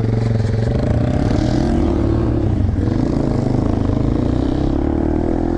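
Small single-cylinder motorcycle engine running under way. Its pitch dips a couple of seconds in, then climbs again as it revs back up.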